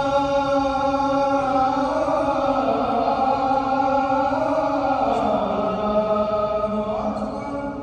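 A man's voice chanting Islamic devotional words in long, drawn-out melodic notes that step down in pitch and rise again near the end, then fade.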